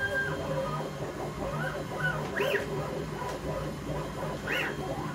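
Stepper motors of a CNC mill whining as they move a diode laser head in short moves, each one rising in pitch, holding and falling away. Two of the moves peak higher, about two and a half and four and a half seconds in. Under it runs a steady machine hum.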